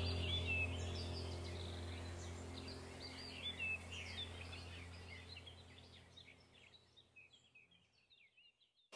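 Birds chirping in quick, scattered calls over a low held music chord, the whole fading out to silence about seven seconds in.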